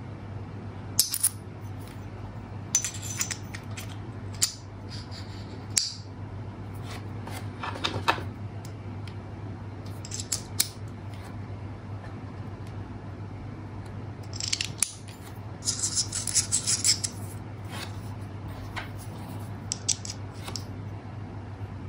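Metal fidget spinner parts clicking and clinking against each other as they are handled and fitted together. There is a quick run of small clicks about two-thirds of the way in. A steady low hum runs underneath.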